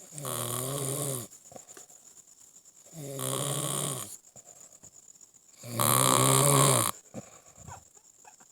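Snoring: three long, wavering snores about three seconds apart, each lasting a little over a second, with quiet breathing between; the third is the loudest.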